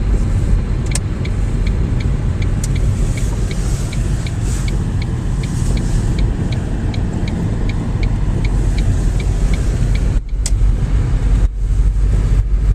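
Car interior road and engine rumble, with a turn-signal relay ticking steadily, two to three clicks a second, that stops about ten seconds in. A few single knocks come through the cabin.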